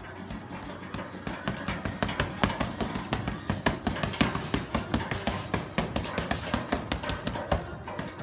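Boxing gloves landing on a hanging heavy punching bag in quick combinations: a rapid, uneven run of sharp slaps and thuds, several a second, with the hardest hit about halfway through.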